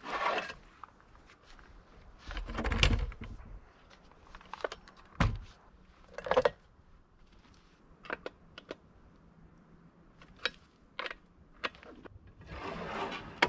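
Scattered metallic clicks, clinks and rustles of a chainsaw being handled and taken off its aluminium chainsaw mill frame. Two dull thumps come about three and five seconds in, the first the loudest.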